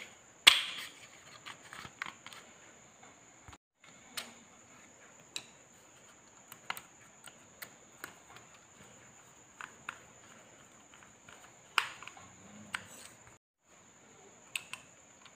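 Sharp plastic clicks and taps from handling a holographic-style red dot sight. The loudest is a snap about half a second in as the battery compartment cover is pushed on. Scattered lighter ticks follow as a screwdriver works at the mount.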